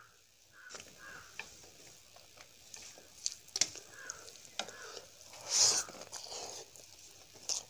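Fingers mixing rice and curry on a stainless steel plate: soft wet squishing with scattered light clicks against the metal. A louder burst comes a little past halfway as a handful of rice goes to the mouth.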